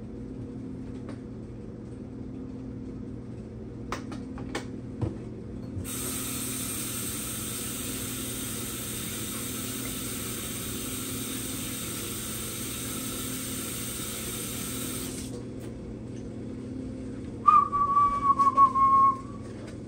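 Kitchen tap running for about nine seconds as hands are washed under it, starting and stopping abruptly, with a few light clicks just before it. Near the end comes a short, loud whistle on one slightly wavering note.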